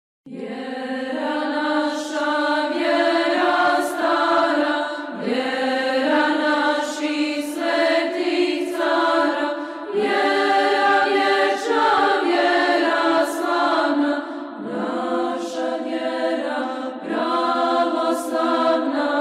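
Orthodox church choir singing a slow chant without instruments, in sustained phrases of a few seconds each.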